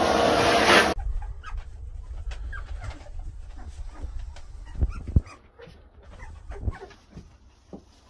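Young black Labrador Retriever puppies squeaking and whimpering with many short, high cries, with a couple of low thumps about five seconds in. A loud rushing noise runs for the first second and cuts off suddenly.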